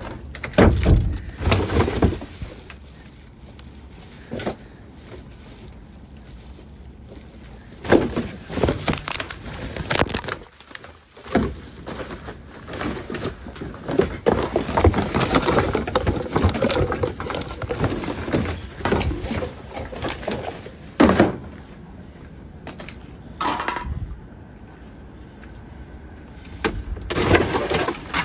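Plastic wheeled garbage and recycling bins being handled: lids knocking open and shut and the contents rummaged through. A string of sharp knocks and thuds, with a longer stretch of clattering and rustling in the middle.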